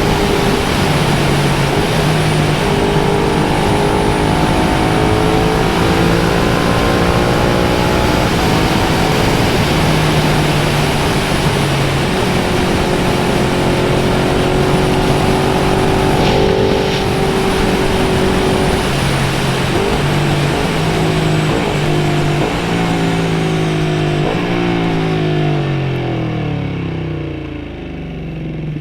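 Motorcycle engine running at speed with wind rushing past, its pitch stepping up and down a few times around the middle. Over the last few seconds the engine note falls steadily and the wind noise fades as the bike slows down.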